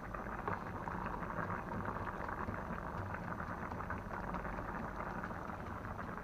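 A large wok of chopped meat and bamboo shoots simmering in its liquid, bubbling and popping steadily.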